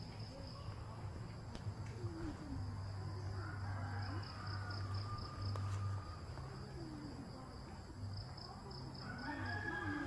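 Outdoor ambience led by a steady high-pitched trill of chirping crickets that pulses in places, over faint distant calls and a low steady hum.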